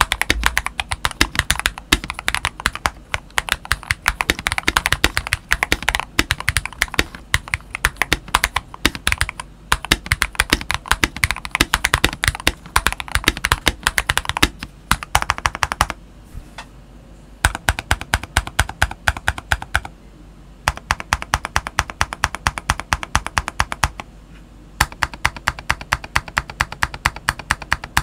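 Fast typing on a modded Eyooso K620 TKL mechanical keyboard with lubed Akko Rose Red linear switches and YMDK PBT OEM keycaps. The plastic case is damped with a silicone pour, bike weights and tape layers. The rapid keystrokes come in runs, with a pause of about two seconds around the middle and two shorter pauses later.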